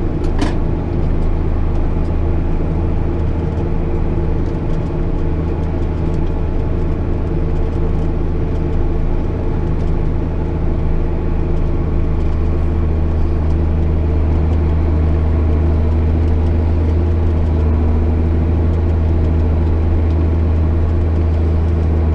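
JCB Fastrac 8250 tractor's diesel engine running steadily at a constant drone.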